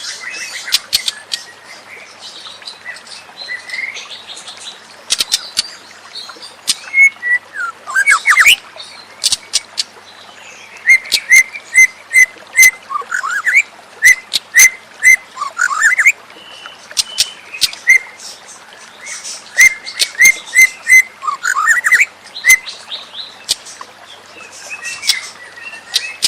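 White-rumped shama (murai batu) singing: phrases of repeated whistled notes, rising and falling slurs and sharp high clicks, delivered in loud bursts with short pauses between them.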